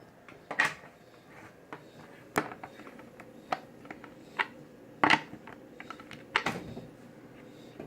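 Irregular clicks and knocks of skateboard truck parts being handled and fitted together as a new bushing goes on, with a handful of louder knocks among softer clicks.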